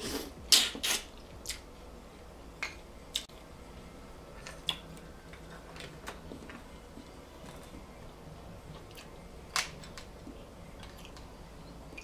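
A person eating blue lip mussels close to the microphone: wet mouth smacks and chewing. There is a cluster of loud smacks about half a second to a second in, then scattered sharp clicks, one louder near ten seconds.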